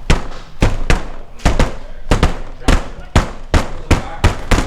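Airsoft guns firing semi-automatic: about a dozen sharp cracks at an uneven pace, two or three a second.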